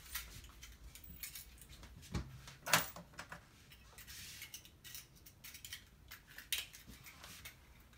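Handheld stapler being handled: scattered small clicks and light metallic rattles, with two sharper clicks about two to three seconds in.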